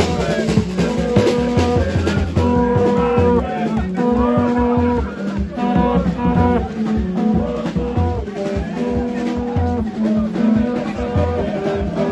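Music with a steady drum beat and held instrumental notes over it.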